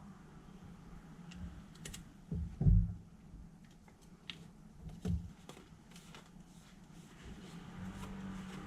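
Scattered light clicks and knocks of objects being handled, with a louder knock about two and a half seconds in and another about five seconds in, over a steady low hum.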